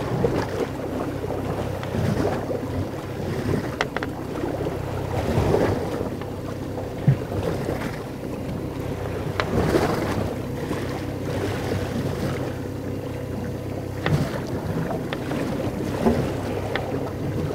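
Sound of a small boat at sea: wind buffeting the microphone and water washing against the hull over a steady low hum, with a few faint knocks from handling on the bait board.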